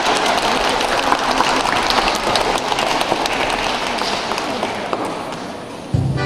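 An audience of schoolchildren and adults applauding with dense, steady clapping that fades slightly toward the end. Music starts abruptly just before the end.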